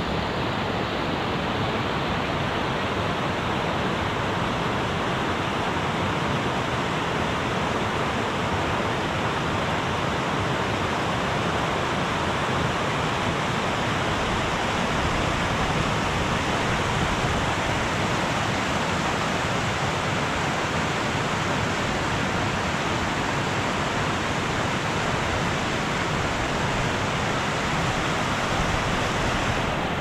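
Mountain stream rushing over rocks and boulders: a steady, unbroken rush of water.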